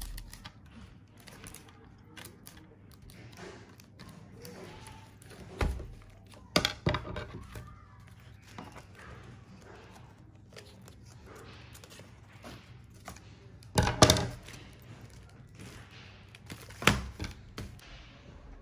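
Scattered small clicks and rustles of handling, broken by four loud thumps: about six seconds in, just under seven, around fourteen seconds (the loudest) and about seventeen.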